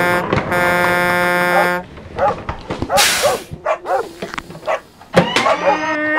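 Paw Patroller toy truck's electronic sound effects from its small speaker: a held, buzzy horn tone with a brief break, then a string of short cartoon dog barks, a short whoosh about three seconds in, and another horn tone near the end. A plastic clack about five seconds in as the truck's side ramp drops open.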